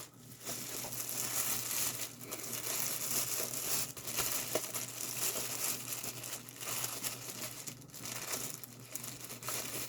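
Paper or plastic packaging crinkling and rustling in the hands as a mail package is opened.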